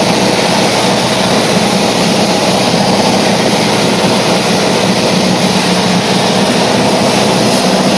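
Loud, steady machine noise: an even rush with a low hum, unchanging throughout, like a running engine or vehicle.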